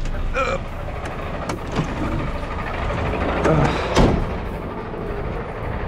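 DAF truck's diesel engine running with a steady low rumble, with rattles and clicks and a sharp thump about four seconds in.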